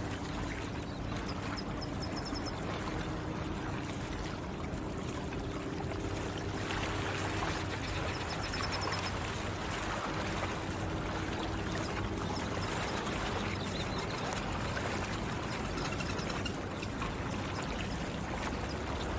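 Flowing water trickling and washing steadily, with a faint low hum underneath. A small bird gives brief high trills a few times, about a second in and again around seven to nine seconds.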